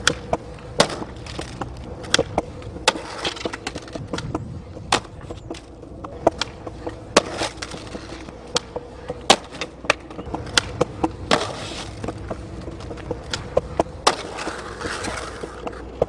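Skateboard street skating: repeated sharp clacks of the board popping, landing and hitting the pavement, at irregular intervals, over the rumble of wheels rolling on concrete and asphalt.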